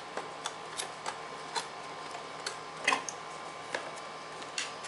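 Light, irregularly spaced clicks and taps, about ten in all, from handling and closing a small plastic project box, over a faint steady hum.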